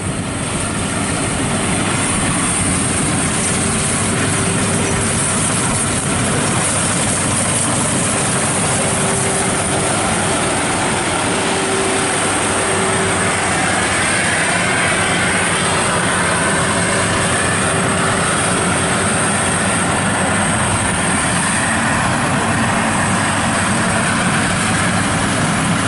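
FMWorld WD102 crawler combine harvester cutting and threshing rice, its engine and machinery running steadily and loudly.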